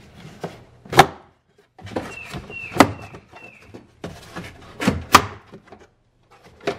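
Hard plastic underfloor storage bin and trim in a 2017 Nissan Pathfinder's cargo area being pulled at and handled: about five sharp plastic knocks and clicks, with a few short squeaks of plastic rubbing in the middle.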